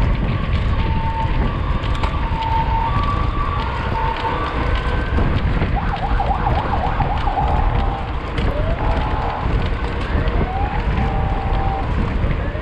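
Wind rushing over the microphone of a mountain bike being ridden, with many small rattles and clicks from the bike. Short whistling tones come and go above it, some gliding up or down, with a fluttery cluster about halfway through.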